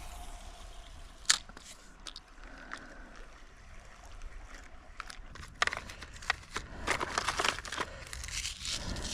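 Footsteps crunching and crackling through dry fallen leaves and brush. The crunches are scattered at first, then come thick and louder over the second half.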